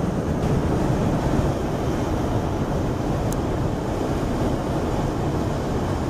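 Steady low rumble of road and wind noise inside a moving vehicle at highway speed.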